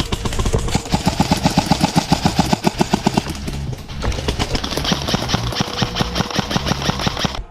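Background music mixed with rapid full-auto airsoft gunfire, a fast regular stream of shots about a second in lasting a couple of seconds.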